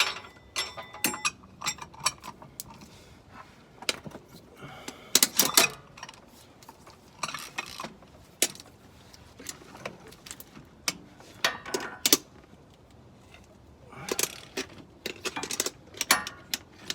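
Oil filter wrench driven by a ratchet on extensions, working up from under the truck to break loose the oil filter of a 5.9 Cummins: irregular ratchet clicks and metal clinks and clatter, with pauses between.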